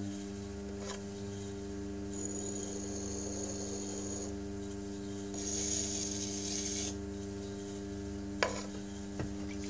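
Electric pottery wheel humming steadily as it spins, while a metal tool scrapes against the clay at the base of a thrown plate in two passes of a second or two each. A sharp click near the end, then a softer one.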